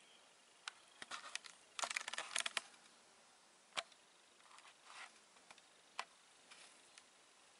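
Light clicks and taps from handling stones and the camera, with a quick run of clicks about two seconds in and single clicks scattered before and after.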